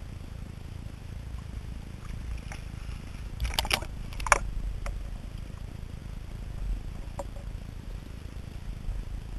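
Water sloshing against a waterproof camera housing, muffled with a low rumble, with a short burst of splashing and knocks about three and a half seconds in as the camera goes under the surface. After that comes a dull underwater rumble with a few faint clicks.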